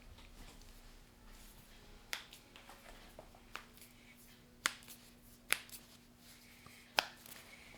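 Joints cracking under a chiropractic adjustment: a series of about five sharp pops a second or so apart, the last three loudest.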